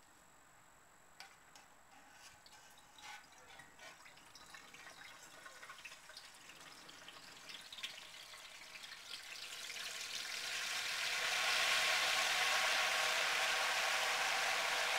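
Hot oil in a propane turkey fryer pot sizzling as a whole turkey is lowered into it: scattered pops and crackles at first, swelling to a loud, steady sizzle about ten seconds in as the bird goes under.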